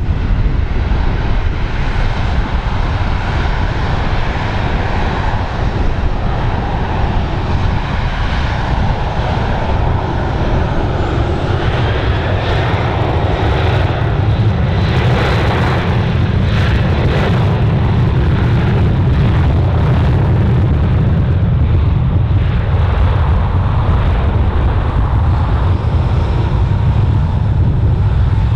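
Airliner engines running continuously, heard through heavy wind buffeting on the microphone.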